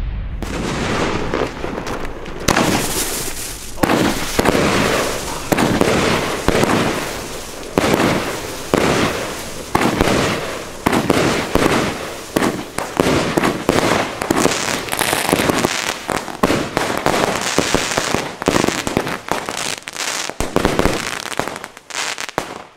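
Funke consumer fireworks firing a rapid series of aerial shots, each going off with a bang and crackle, roughly one a second, thinning out near the end.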